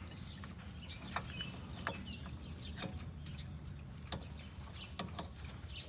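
A few light, scattered clicks and taps of a new brake pad being handled and seated into the rear brake caliper bracket, over a low steady hum.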